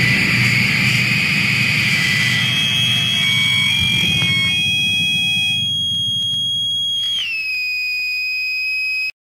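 Dense distorted noise-punk band sound thins out over the first few seconds, leaving a single sustained high feedback tone. About seven seconds in, the tone slips down in pitch, then cuts off abruptly.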